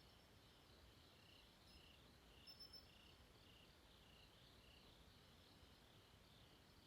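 Faint crickets chirping at night in a steady pulse of about two chirps a second, over a low background hiss. About two and a half seconds in come three short, higher chirps.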